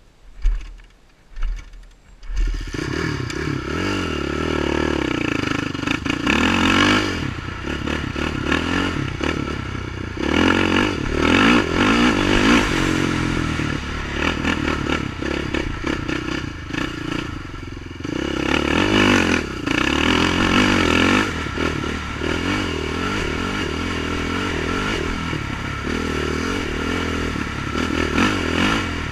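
Honda TRX450R sport quad's single-cylinder four-stroke engine: after two thumps it starts up about two seconds in, then runs under way, rising in pitch under throttle in several surges.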